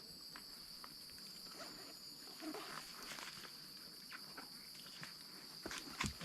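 A steady high-pitched drone of insects, with scattered soft hoof steps of a horse walking along the trail.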